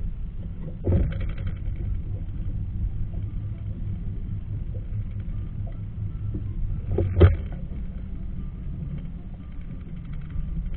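Boat engine idling with a steady low rumble, with two sharp knocks about a second in and about seven seconds in.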